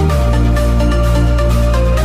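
Loud electronic dance music with a heavy, sustained bass line and a steady beat; the bass note changes at the start and again near the end.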